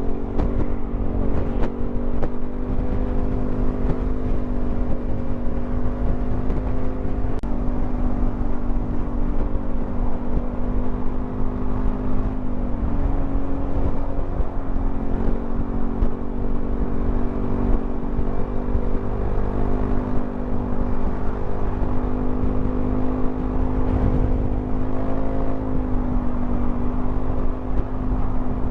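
Yamaha XMAX 300 scooter's single-cylinder engine running at a steady cruise, its note dipping and recovering slightly a few times, over a heavy low rumble of wind and road.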